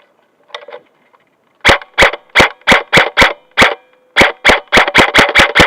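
Airsoft gun fired close by in quick single shots, about fifteen sharp pops starting near two seconds in, coming faster after a short pause near the end.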